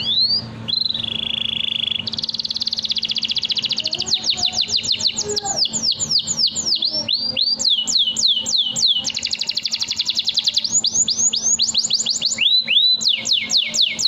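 Domestic canary singing a long, unbroken song: fast trills and rapid runs of falling whistled notes. A faint steady low hum lies underneath.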